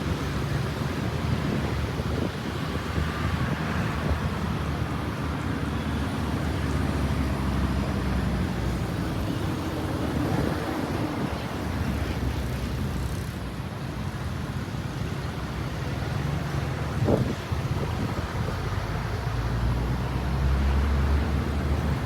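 Steady low rumble of road traffic with wind buffeting the microphone, and a faint engine hum.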